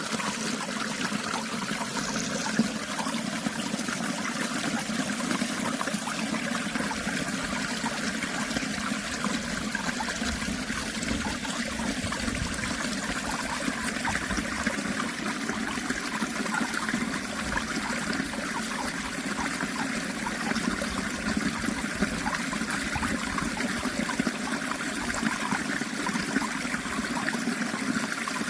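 Water of a stream flowing steadily, an even rushing trickle with no breaks.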